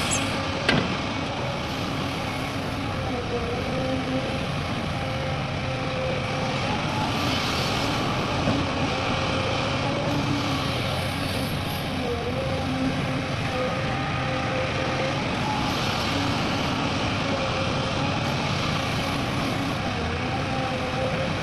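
Heavy diesel machinery running steadily, its engine note dipping and recovering every few seconds as the load changes. There is one sharp click just after the start.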